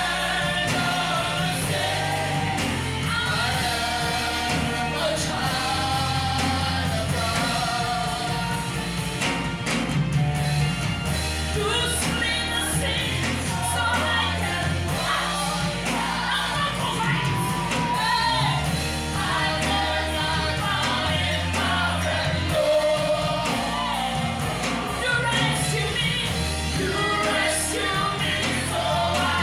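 Gospel worship music: voices singing a melody over a band with long held bass notes.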